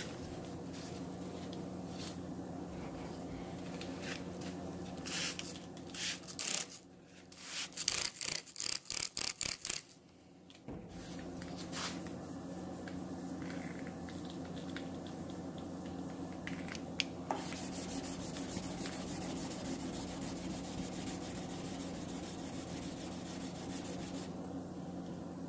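Wet sandpaper rubbing back and forth over the clear coat of a car body panel, with a run of quick, even strokes around the middle. This is the 600-grit stage, levelling drips and flaws in the clear before finer grits and buffing. A steady low hum runs underneath.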